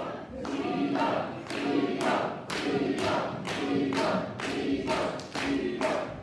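Wrestling crowd chanting in unison and clapping along in a steady rhythm, about two claps a second.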